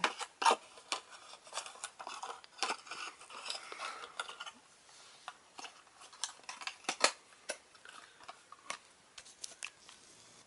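Toy packaging being handled: irregular light clicks and taps, with a stretch of scraping rustle in the middle.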